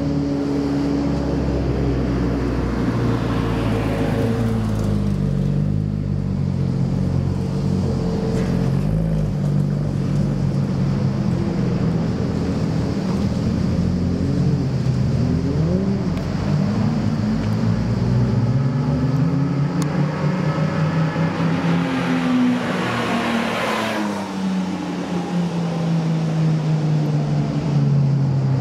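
Race car engines on a circuit heard from trackside, their pitch rising and falling as the cars accelerate, shift and brake. There is a louder pass about three-quarters of the way through, its pitch dropping away as it goes by.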